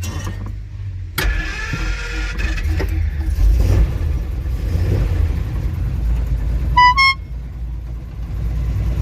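Simca Marmon 4x4 truck's engine running, with a jump in level about a second in as it picks up, then a steady rumble. Two short horn toots, the second a little higher, about seven seconds in.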